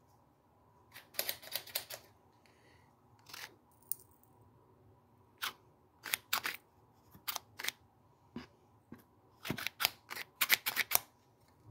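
Sharp clicks and taps of hard plastic against a plastic gold pan, in short quick clusters with pauses between. The loudest and densest run of taps comes near the end.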